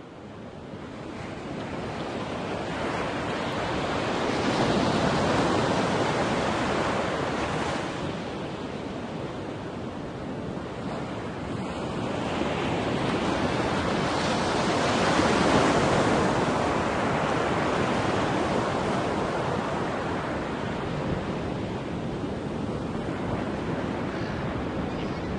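A rushing noise like breaking surf. It fades in at the start and swells and eases twice.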